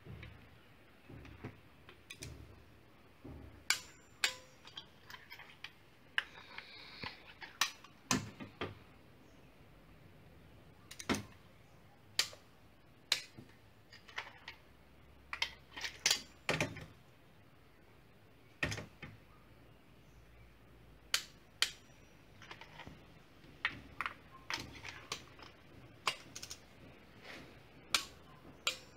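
Sharp metallic clicks and clinks of a socket wrench and extension working in the engine's spark plug wells as the new spark plugs are tightened. The clicks come singly, at uneven gaps of one to a few seconds, with a few in quick clusters.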